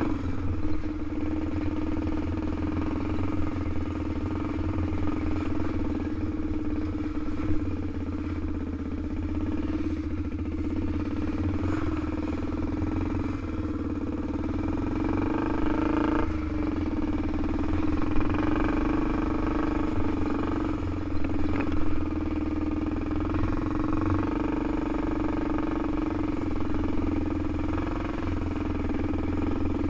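2002 Honda TRX400EX ATV's single-cylinder four-stroke engine running under way, its pitch rising and falling with the throttle, with a few sharp knocks along the way.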